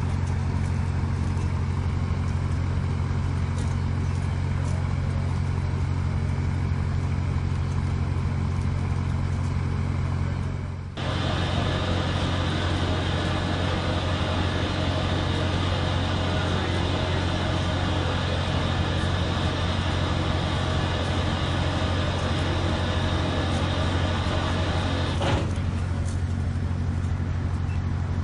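Steady low mechanical hum with a hiss over it. About eleven seconds in it drops out briefly and comes back louder and brighter, then eases back about twenty-five seconds in.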